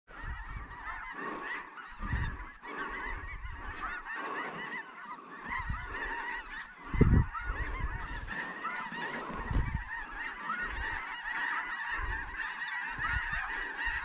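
A large flock of snow geese calling overhead, a dense, unbroken chorus of honking and yelping, with low buffeting on the microphone, loudest about seven seconds in.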